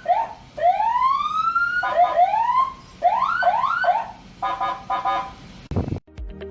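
Senken CJB100BD electronic siren run through its tones. First come quick repeated upward whoops, then one long rising wail about a second in, then more quick whoops. Near the end it switches to a pulsing horn-like blast.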